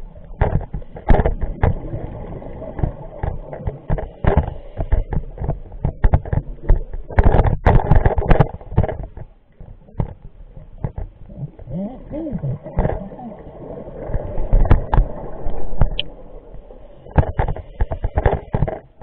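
Underwater sound heard through a camera housing: a scuba diver's regulator breathing, with bursts of crackling, rumbling exhaled bubbles every few seconds and quieter stretches between.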